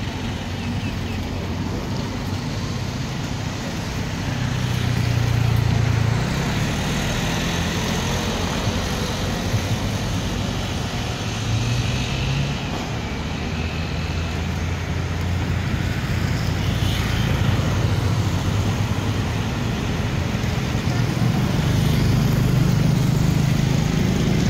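Motor traffic: a steady low engine drone from passing vehicles, swelling about five seconds in and again near the end.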